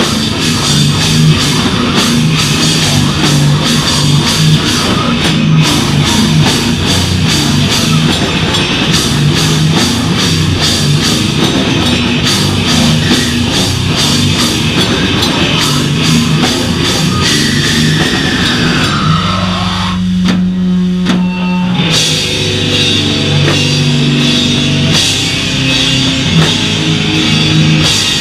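Live beatdown hardcore band playing loud: a drum kit pounding under heavy distorted guitars and bass. About two-thirds of the way in a sliding pitch falls away and the drums stop, leaving a held low chord for a few seconds. Then the band crashes back in with a stop-start chugging breakdown.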